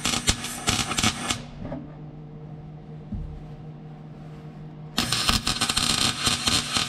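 MIG welder arc crackling as a bead is run joining a new steel floor pan to the heater channel. One burst lasts about the first second and a half, then there is a pause with a low steady hum, then a second burst starts about five seconds in.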